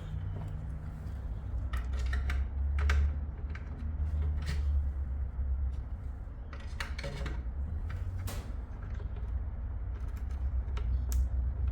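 Scattered small clicks, knocks and creaks from the lock hardware and the wooden drawer being worked during a drawer lock fitting, over a steady low hum.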